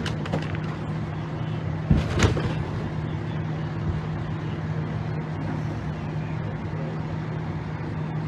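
An engine running steadily with an even hum, and a couple of brief knocks about two seconds in.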